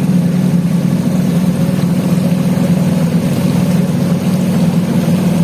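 Motorboat engine running steadily, a constant low drone.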